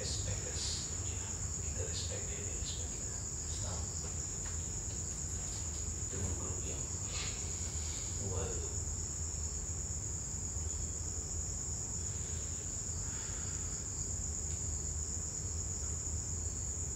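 Crickets chirring in a steady, unbroken high-pitched drone, with a few faint, low voices now and then in the first half.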